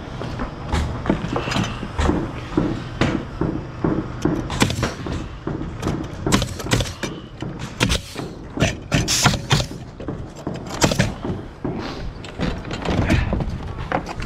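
Pneumatic nail gun firing nails into framing lumber several times, each shot a sharp bang with a short burst of air hiss, among knocks from boards being handled.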